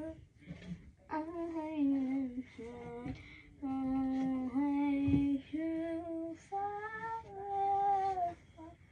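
A girl singing to herself unaccompanied, several phrases of held notes with short breaks between them.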